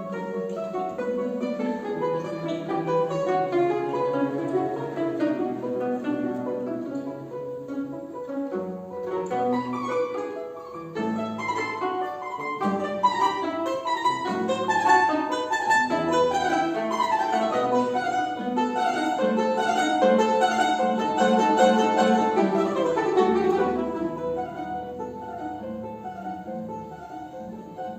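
Instrumental music played on plucked string instruments, with many quick notes; it grows fuller toward the middle and softens about 24 seconds in.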